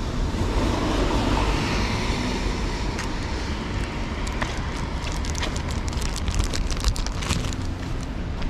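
Rainy city street ambience: a steady hiss of wet traffic and rain, with wind rumbling on the action camera's microphone. About halfway through, a run of small irregular crackles and ticks starts and thickens near the end.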